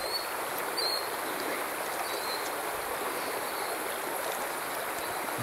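Small creek's water running steadily over a shallow streambed.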